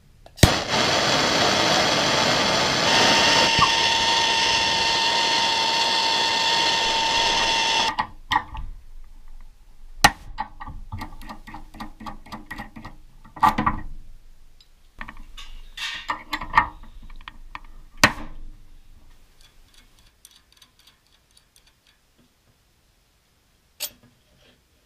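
A power tool runs loudly for about seven and a half seconds, its pitch stepping once partway through, then stops. After it come scattered metal clinks and knocks as a homemade steel hinge-pin puller is fitted to a door hinge and its nuts are worked with a spanner.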